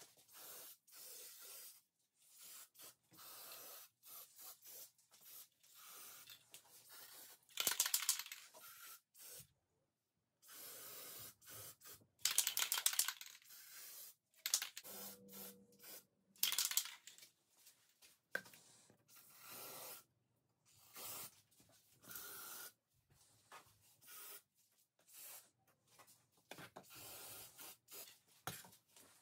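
Rust-Oleum Universal Metallic aerosol spray paint hissing from the can in many short bursts, with three louder, longer sprays a quarter, two fifths and half of the way in.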